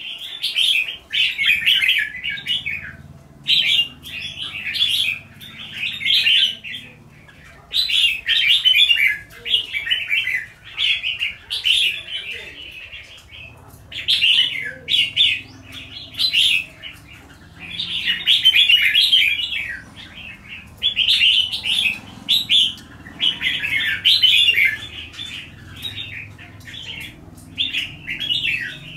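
Caged red-whiskered bulbuls singing: quick chattering song phrases, one after another every second or two, with short pauses between them.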